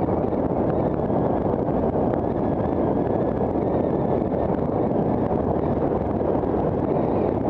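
Wind rushing over the microphone of a camera riding on a moving bicycle: a steady, low rush with no let-up.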